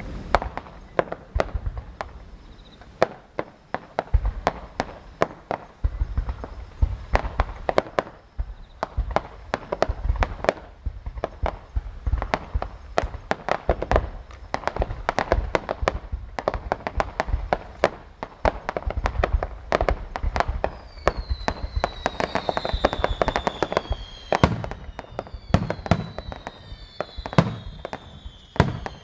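Japanese starmine fireworks barrage: shells bursting in rapid, dense succession with deep booms and sharp cracks. From about twenty seconds in, several high whistles fall in pitch among the bursts.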